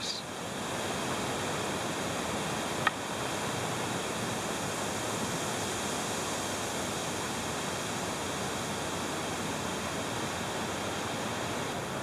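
Steady, even rushing noise, with one faint short click about three seconds in.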